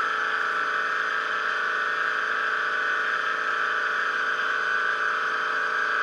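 Mainstays single-serve K-Cup coffee maker running with a steady electric buzz near the end of its brew cycle, still on before it shuts itself off.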